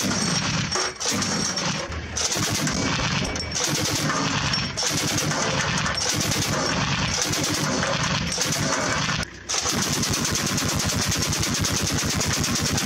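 Truck-mounted twin-barrel anti-aircraft autocannon firing: several short bursts about a second apart, then after a brief break a long unbroken burst of rapid shots.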